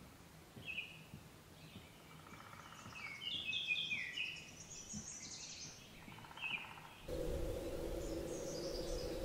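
A forest songbird singing short phrases of clear whistled notes; the loudest is a run of falling notes a few seconds in, with a faint lower trill behind. About seven seconds in, a steady low hum comes in abruptly.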